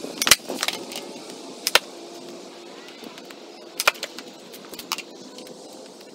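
Skateboard being popped and landed on a concrete driveway during heelflip attempts: sharp wooden clacks of the tail and deck striking the concrete, with the wheels slapping down. The loudest clack comes about a third of a second in, followed by a quick second one, then single clacks around two, four and five seconds.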